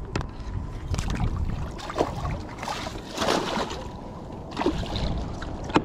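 Black crappie on a stringer splashing and thrashing at the water's surface beside a kayak, loudest about three seconds in, with a few sharp clicks and knocks from handling the catch and tackle.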